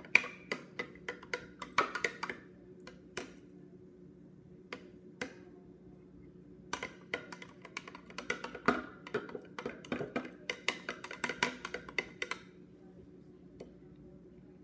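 Metal spoon clinking against the inside of a drinking glass while stirring a milk drink: rapid runs of light taps, each with a short glassy ring. They come in two spells with a pause of a few seconds between.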